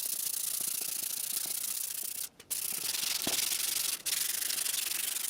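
100-grit sandpaper rubbed by hand over the steel RZ350 motorcycle frame, a steady hiss broken by two brief pauses, a little over two seconds in and about four seconds in.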